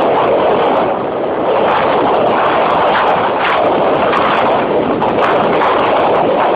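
Strong wind rushing over the camera's microphone as a tornado passes: a loud, steady roar with many small crackles.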